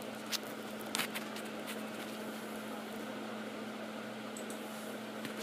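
Steady low hum with an even hiss, with a few faint clicks or taps, about a second in and near the end.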